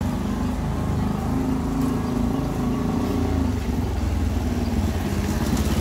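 A motorcycle engine running close by at low speed, its pitch wavering slightly, over a steady hum of street traffic.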